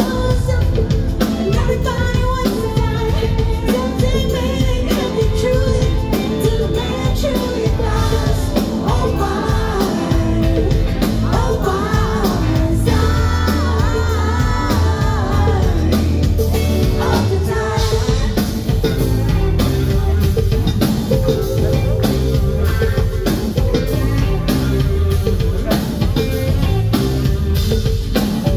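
Live band playing a rock song, with drums, bass guitar, electric guitars and keyboards under a lead vocal, heard from among the audience.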